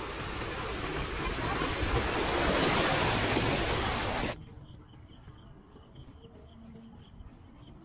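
Muddy floodwater rushing and splashing across a dirt road: a loud, steady hiss that swells in the middle, then cuts off suddenly a little over four seconds in, leaving only a faint background.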